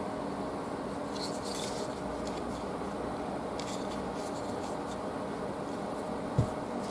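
Faint clicks and rubbing from hands handling a SteelClaw Aspid folding knife, over a steady low hum, with one dull thump near the end.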